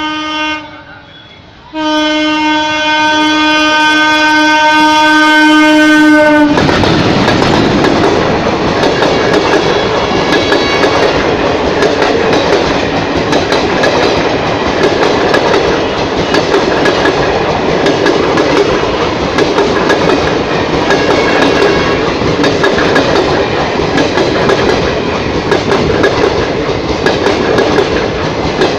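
WAP-4 electric locomotive's horn sounding one steady note: a short blast, then after a second's pause a long blast of about five seconds that cuts off as the train reaches the crossing. The Bagh Express then passes close by, with a loud continuous rush of noise and a rapid clickety-clack of wheels over rail joints.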